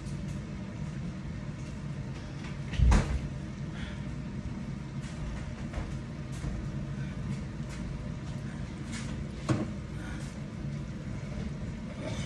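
A kitchen cupboard door bangs shut about three seconds in, with a lighter knock later, over a steady low hum.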